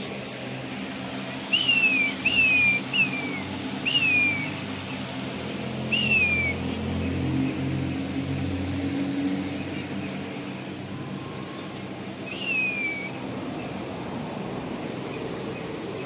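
King quail calling: short descending whistles, five in quick succession in the first six seconds and one more about twelve seconds in. Small birds chirp faintly in between.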